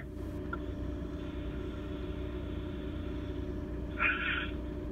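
A steady low hum with a deeper rumble beneath it, and a brief faint sound about four seconds in.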